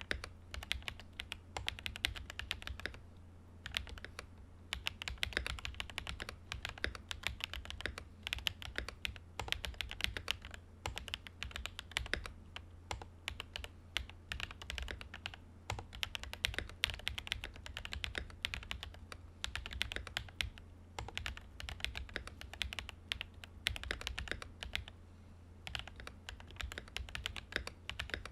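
Fast, continuous typing on a Command 65 prototype mechanical keyboard fitted with Sotc switches, a POM plate and Domikey Vintage keycaps. The keystrokes are rapid clacks, with short pauses about three seconds in and near the end, over a steady low hum.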